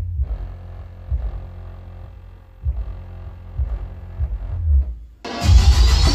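Bass-heavy electronic music playing through a car subwoofer and desk speakers in a bedroom bass test. At first it is muffled behind a closed door, mostly deep bass thumps. About five seconds in, as the door opens, it suddenly comes through loud and full, with a rising synth sweep.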